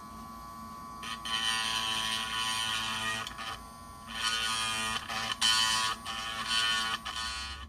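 Dremel rotary tool whining with a small grinding bit, biting into the plastic of a broken locomotive smokestack to grind it out of its hole. The grinding comes in two main stretches, from about a second in and again from about four seconds in, with the motor running on its own in between.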